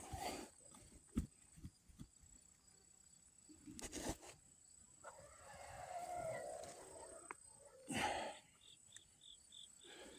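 A rooster crowing once, a long call about halfway through, over scattered thumps and scrapes of digging in garden soil. Near the end an insect starts chirping in a steady rhythm, about three chirps a second.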